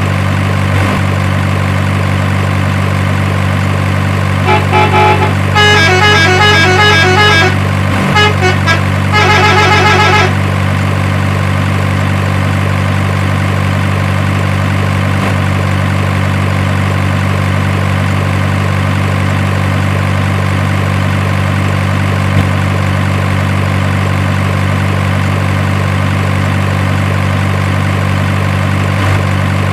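Steady low truck-engine idling drone, with a run of short horn toots from about four to ten seconds in.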